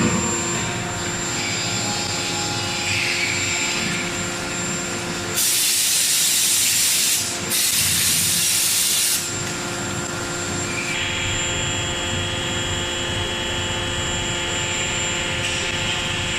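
Forging machinery humming steadily at a CNC hydraulic die forging hammer, with two loud hissing blasts of about two seconds each, one right after the other, starting about five seconds in.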